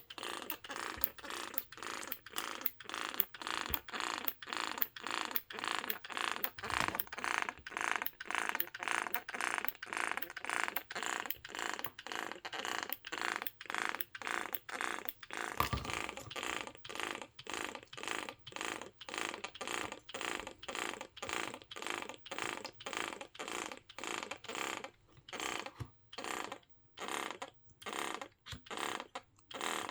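Medela Swing breast pump's motor-driven diaphragm pump running, pulsing in an even rhythm of about two strokes a second as it cycles suction. Near the end the pulses come with longer gaps between them.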